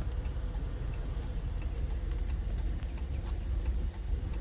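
Steady low outdoor rumble, with a few faint small ticks scattered through it.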